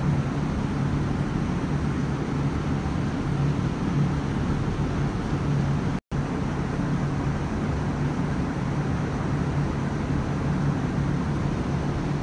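A steady, even droning hiss with a low hum underneath, broken by a split-second gap about six seconds in.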